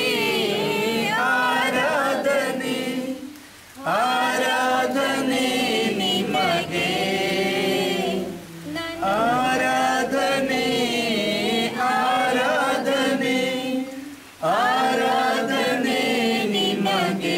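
A group of people singing together without instruments, in sung phrases of about four to five seconds with short breaks for breath between them.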